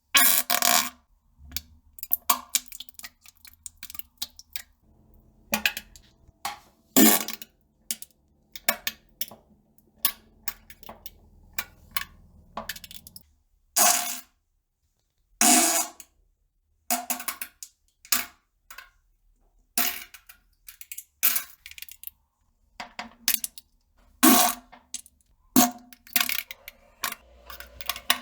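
Someone defecating on a toilet: a long run of short, sharp bursts of flatulence and plopping, irregularly spaced with a few pauses of a second or two.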